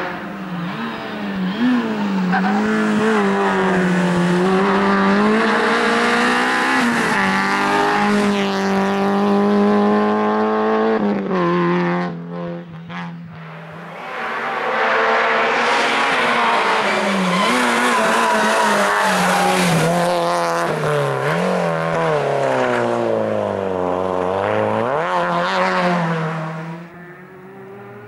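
Peugeot 205 GTI rally car's four-cylinder engine driven hard, its revs rising and falling again and again through gear changes and braking for tight turns. The sound drops briefly about twelve seconds in, comes back, and falls away near the end.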